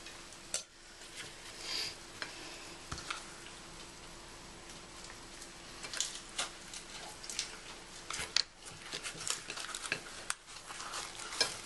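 Faint sizzling on a hot griddle pan, with scattered light clicks and taps of kitchen handling that become frequent from about halfway through, over a steady low hum.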